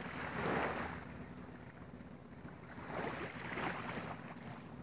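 Small waves lapping at the water's edge of a calm bay shore, two soft swishes a few seconds apart.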